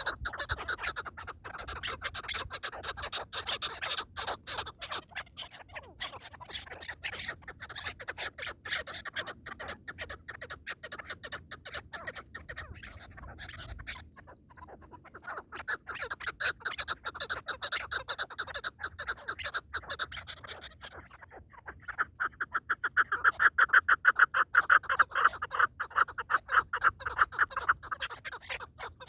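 Partridges calling in long runs of rapid, repeated clucking notes, with a short lull about halfway through. The calls are loudest in the last third.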